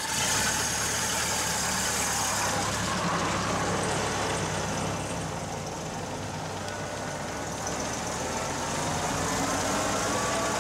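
Vintage cars from around 1930 driving slowly past, their engines running at a low steady note under a noisy wash of street and tyre sound.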